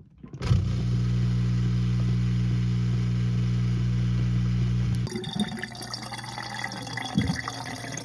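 Whirlpool WDF320PADS2 dishwasher drain pump running with a steady hum, spinning freely and pumping the water out now that the obstruction is cleared. About five seconds in the hum cuts off and water is heard splashing and gurgling as it drains into the sink's garbage disposal.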